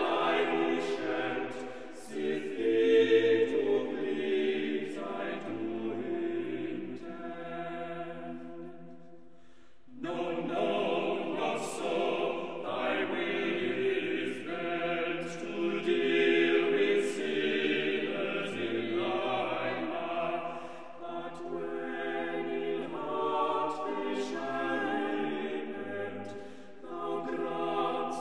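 Choral music: a choir of several voices singing long, held chords. The singing fades away near the 9-second mark and comes back in strongly a second later.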